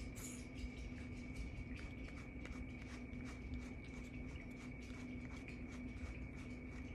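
A grooming brush drawn through a long-haired cat's fur in short strokes, several a second, over a faint steady hum.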